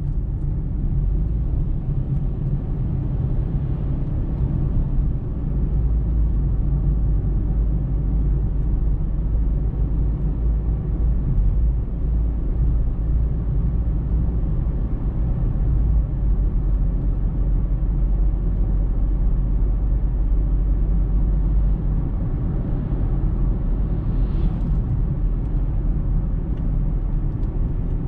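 Car being driven, heard from inside the cabin: a steady low rumble of road and engine noise.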